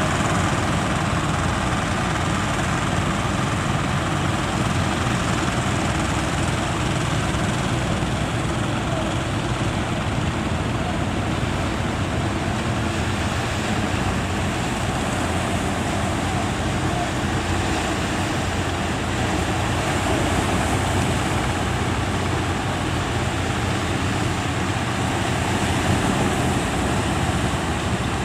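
Fishing boat engine running steadily, mixed with a steady rush of surf and wind.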